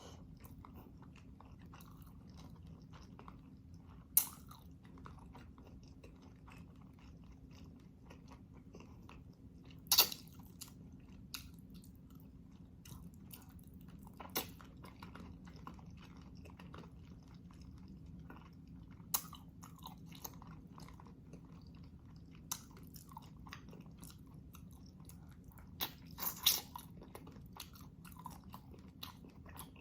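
Close-miked chewing and mouth sounds of a person eating beef shank stew, with a few short, sharp clicks; the loudest come about ten seconds in and near the end. A faint steady hum sits underneath.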